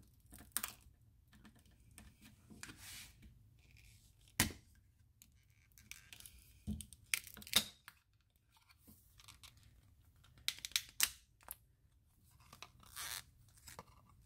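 Adhesive tape being peeled off the sides of a silicone mold box, in irregular short rips and crackles, with a few sharper clicks as the parts are handled.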